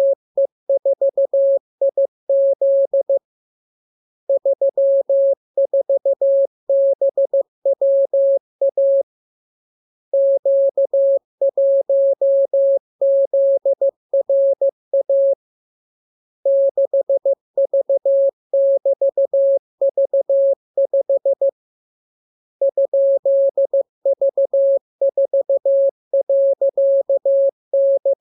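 Morse code practice signal: a single steady mid-pitched tone keyed on and off into dots and dashes, sent as runs of characters separated by pauses of about a second.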